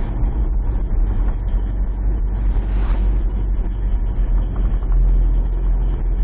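Dump truck engine running steadily just after a cold start, heard from inside the cab as a low drone. A brief hiss comes a little under halfway through, and the drone grows stronger about five seconds in.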